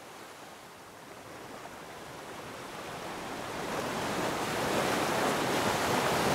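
Ocean surf washing: a steady rushing noise that swells louder through the second half.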